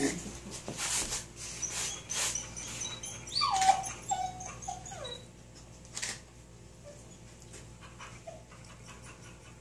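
Dog whining: a falling whine about three seconds in, then a few short whimpers, with scattered soft taps and clicks around it.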